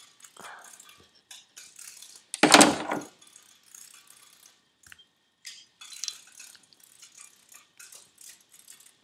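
Small metal clicks and scrapes of a pick working a C-clip into the journal bearing bore of a Holset HX40 turbo's bearing housing, with one louder clack about two and a half seconds in.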